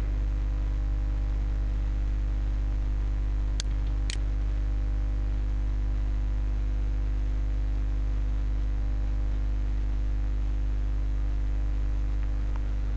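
Steady electrical hum with a stack of even buzzing overtones, typical of mains hum picked up by a computer microphone. Two short clicks come about half a second apart a little under four seconds in.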